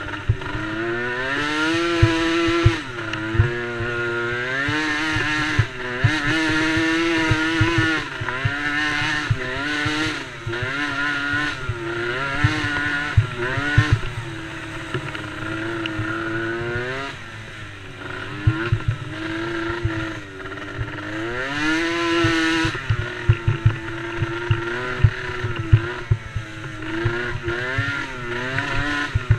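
Small youth race quad engines, such as the DRR DRX90, revving up and down over and over as they race, several engines overlapping. Irregular low knocks run through it.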